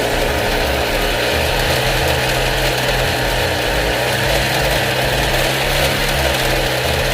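Small brush-cutter engine running steadily at an even speed.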